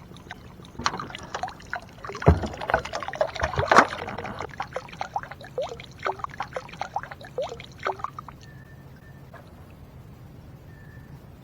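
Water splashing, dripping and trickling beside a kayak as a litter can is pulled out of weedy lake water, with a few sharp knocks, the loudest about two to four seconds in. The splashing dies away about eight seconds in.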